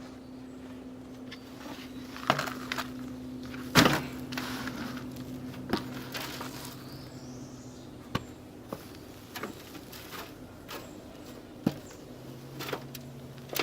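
Potatoes and potting soil being handled as a container pot is dumped and picked through: scattered knocks and rustling, the loudest a sharp knock about four seconds in, over a steady low hum.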